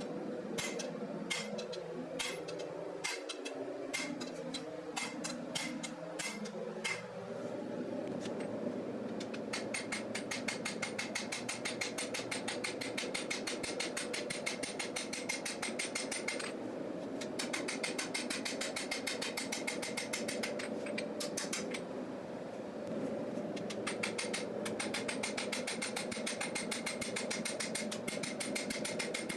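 Hammer striking hot steel on an anvil while forging a knife blade: spaced blows at first, then from about nine seconds in a fast, even run of strikes, several a second, broken by two short pauses. A steady hum runs underneath.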